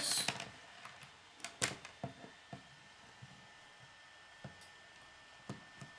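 Plastic K'nex pieces clicking and tapping on a wooden tabletop as a flexible rod is handled and pushed into a connector: a few scattered short clicks, the sharpest about one and a half seconds in.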